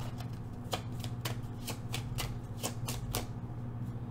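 A deck of oracle cards being shuffled by hand: quick flicking clicks, about three a second, that stop about three seconds in. A low steady hum runs underneath.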